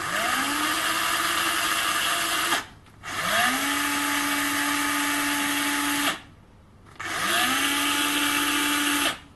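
Cordless drill, with no battery pack and running straight off a 14-volt battery charger, spun up three times in a row. At each trigger pull the motor whine rises quickly to speed and then runs steady for two to three seconds before stopping.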